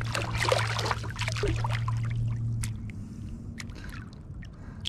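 Carp thrashing and splashing in shallow water as it is worked free of a landing net, hardest in the first second and a half, then smaller splashes and drips. A low steady hum underneath stops about halfway through.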